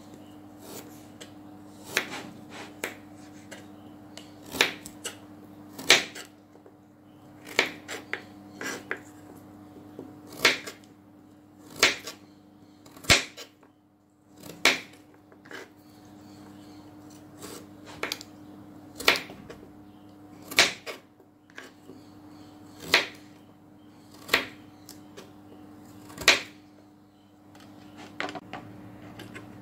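Kitchen knife slicing through raw carrot and striking a plastic cutting board: sharp knocks at an uneven pace, about one every second or two, with a steady low hum underneath.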